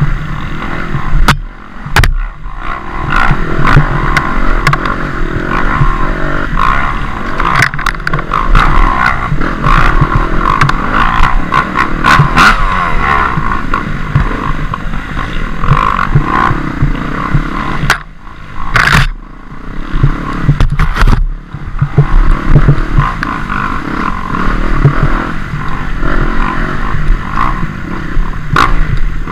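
Dirt bike engine revving up and down at racing pace, with clattering knocks from the bike over rough trail. The throttle is chopped briefly near the start and twice about two-thirds of the way through.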